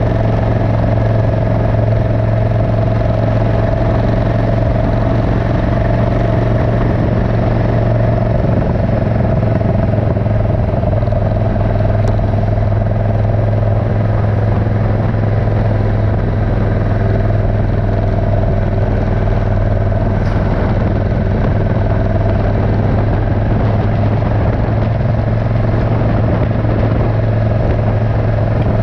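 Suzuki Intruder 1400's V-twin engine running steadily as the motorcycle is ridden along the road, a constant low drone with little change in pitch.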